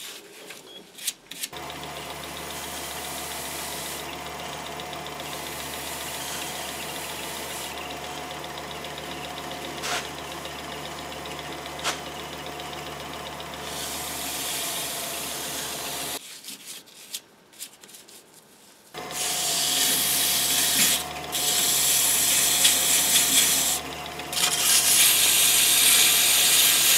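Atlas 618 lathe motor running with a steady hum while abrasive is held against the spinning metal chuck back plate, giving a rubbing hiss. The lathe starts about a second and a half in and stops for a few seconds past the middle. It then runs again with a louder, harsher sanding hiss in bouts.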